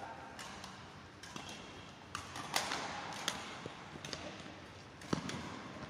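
Badminton rackets hitting a shuttlecock in a rally: several sharp, irregularly spaced hits ringing in a large hall, the loudest about two and a half seconds in.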